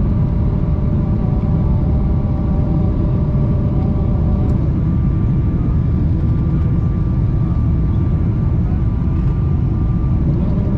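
Steady low rumble of cabin noise inside a Boeing 777-300ER on approach with its flaps extended: the airflow and the GE90 engines, with a faint steady whine above the rumble.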